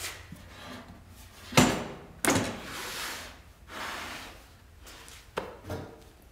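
Baltic birch plywood parts being handled and set down, knocking against each other and the metal base: two loud wooden knocks about a second and a half in, then lighter knocks near the end, with scraping and rustling between.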